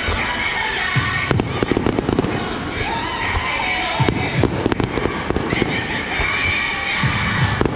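Fireworks going off in clusters of sharp bangs and crackles, with music and crowd noise underneath.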